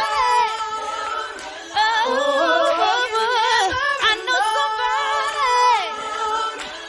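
A song on the soundtrack: a voice singing long held notes with vibrato, with no drums or bass behind it.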